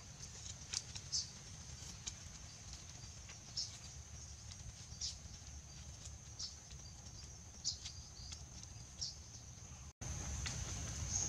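Faint forest ambience: a steady high insect drone, with short high ticks every second or so over a low rumble. A brief gap near the end, after which it is louder.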